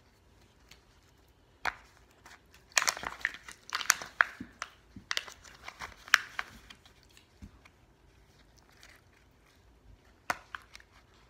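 Kinder Egg wrapper crinkling and crackling in irregular bursts as it is handled and torn open, busiest in the first half, with one last crackle near the end.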